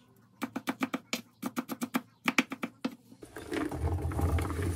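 Chef's knife chopping a poblano pepper on a wooden cutting board in a quick, even run of strokes. Near the end, chopped peppers and onion are tipped into a hot oiled sauté pan and begin to sizzle.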